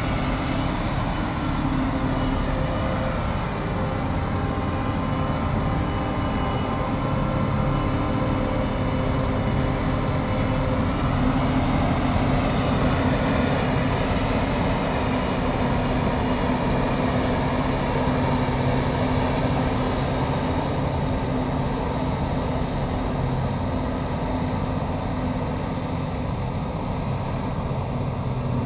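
Krone self-propelled forage harvester running under load while chopping standing maize for silage: a steady drone of engine and cutterhead with several held tones, a little louder in the middle stretch.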